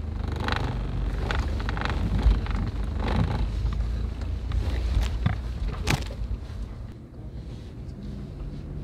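Low, steady rumble of a Toyota Prado four-wheel drive on the move, with wind on the microphone and a couple of sharp knocks past the middle; it eases off near the end.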